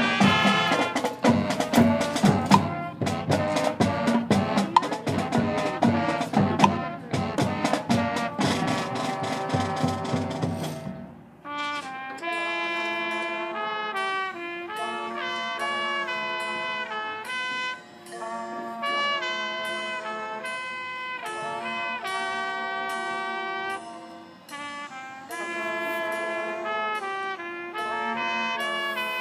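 High school marching band playing brass and percussion. It plays loud and full with the drums for about the first ten seconds, then drops suddenly to a quieter, lighter passage of held notes with the drums largely gone.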